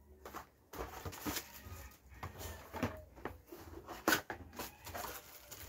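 Cardboard box and plastic packaging being handled: irregular crinkling, rustling and light knocks as ring light parts are pulled out, with a sharper knock about four seconds in.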